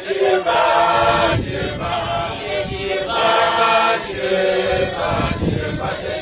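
A church congregation singing a hymn together without instruments, many voices chanting in phrases of a few seconds with short breaks between them.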